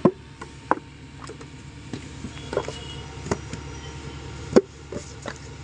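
Hand-moulding of clay bricks: irregular dull knocks and thuds of wet clay being handled and a wooden brick mould set down on sandy ground, about six in all, the loudest right at the start and about four and a half seconds in. A steady low hum runs underneath.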